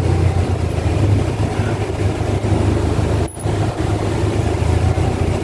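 Engine of a cab-over passenger van running steadily while driving, heard from inside the cab as a low hum with road noise. The level briefly dips a little over three seconds in.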